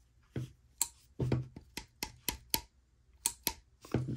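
Milwaukee 7-in-1 wire stripping pliers being worked open and shut by hand: about a dozen sharp clicks, unevenly spaced, as the spring-loaded handles open out to their stop and are squeezed closed.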